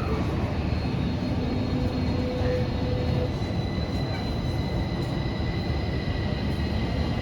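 Tokyo Metro 05 series subway train running, heard from inside the car: a steady rumble of the wheels and running gear, with faint steady electrical tones from its Toshiba IGBT-VVVF inverter and permanent-magnet synchronous motors.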